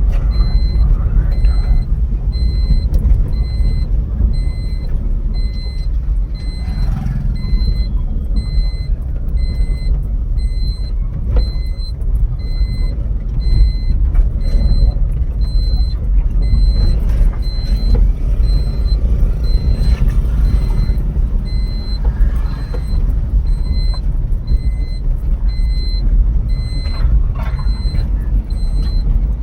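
Car on the move: a steady, loud low rumble of engine and road noise.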